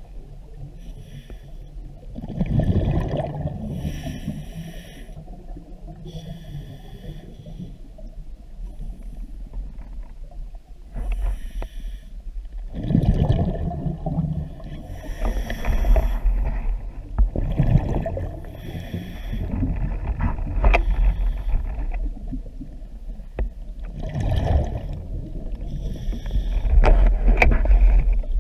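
Scuba diver breathing through a regulator, heard underwater: hissing inhalations through the demand valve alternate with bubbling, rumbling exhalations, one breath every few seconds.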